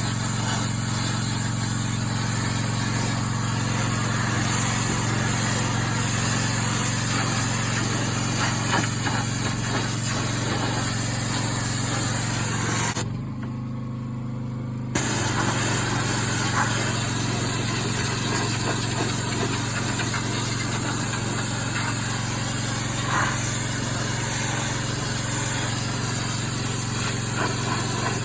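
Engine-driven pressure washer running steadily, its engine a constant hum under the hiss of the water jet blasting the composite decking. About halfway through the spray stops for a couple of seconds, the trigger let off, while the engine keeps running, then the jet comes back on.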